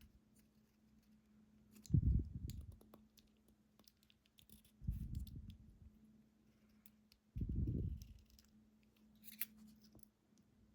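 Small sharp metallic clicks and scrapes from a lock being taken apart by hand, with three dull thumps of it being handled or set down about two and a half seconds apart. A faint steady hum runs underneath.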